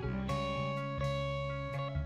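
Background music: a plucked-string instrument playing held chords that change about once a second.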